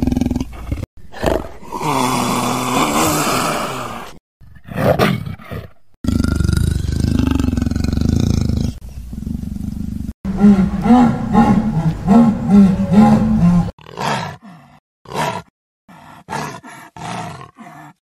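Leopard calling: several separate rough roaring calls, cut apart by abrupt breaks, with a longer run of calls past the middle and short calls near the end.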